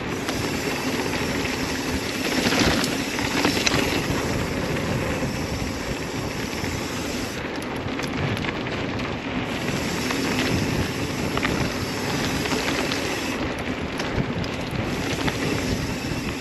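NS Eccentric hardtail mountain bike riding a dirt flow trail: a steady rush of tyres rolling on dirt and wind over the microphone, with scattered clicks and knocks from the bike rattling over bumps.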